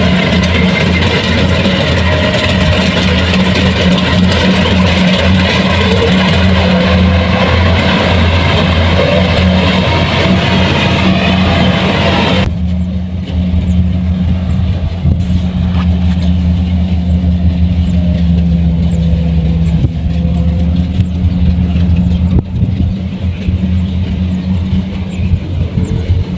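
Kubota rice combine harvester running steadily, a loud low engine drone under a rushing mechanical noise. About halfway through the rushing noise cuts off suddenly, leaving mostly the engine drone.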